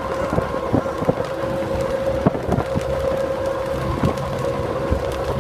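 Vintage trolley running at speed on light-rail track, heard through an open window: a steady rumble of wheels on rail under a steady whine, with a few sharp clicks from the track.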